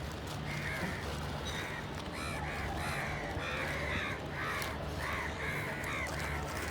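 Several crows cawing: a quick run of short, harsh caws, some overlapping, about three a second.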